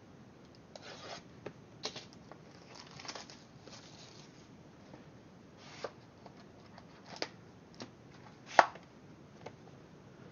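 Trading cards and their cardboard packaging being handled: scattered soft rustles, scrapes and light taps, with one sharper tap late on.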